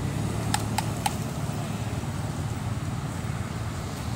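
Steady low engine hum, with three short, high chirps in quick succession about half a second in.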